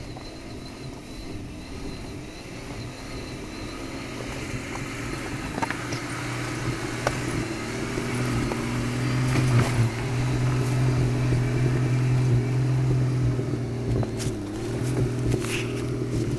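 Jeep Wrangler engine running at low, steady revs as it crawls over rocks toward the listener, growing steadily louder. Scattered knocks and crunches of stones under the tyres come in from about five seconds in and are thicker near the end.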